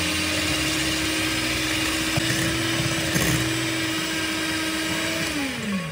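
Electric hand mixer whisking egg whites in a glass bowl, its motor running at a steady pitch. Near the end it is switched off and winds down, the pitch falling away.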